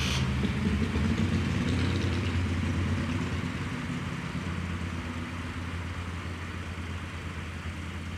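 Car engine idling steadily, a low even hum that gradually gets quieter.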